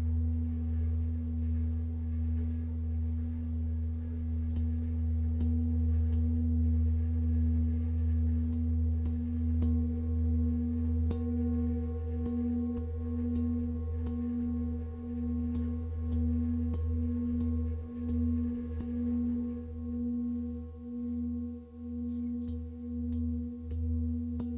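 A large singing bowl ringing with a deep, sustained tone and a stack of steady overtones. From about halfway through, the tone pulses in a slow, even wavering beat.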